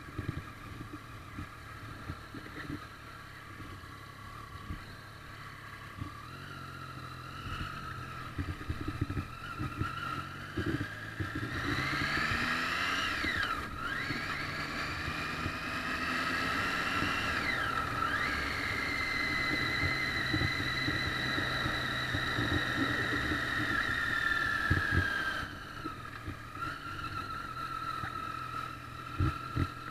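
Triumph Street Triple's three-cylinder engine running under the rider, ticking over at low revs at first. About twelve seconds in it accelerates: the pitch climbs, drops suddenly at a gear change, and climbs again. It then holds steady and eases off near the end.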